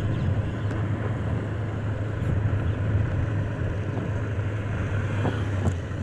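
Motorcycle engine running at a steady speed while riding, a constant low hum under an even haze of wind and road noise.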